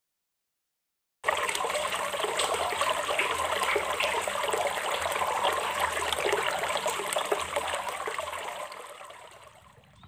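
Running water trickling and rushing steadily. It starts suddenly about a second in and fades away near the end.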